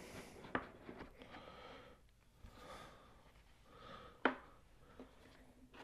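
Faint handling of a gimbal's retail box as it is opened: soft rustling with a few sharp clicks or knocks, the loudest about four seconds in.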